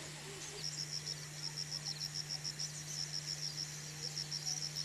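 An insect chirping in a steady run of short, high pulses, several a second, starting about half a second in.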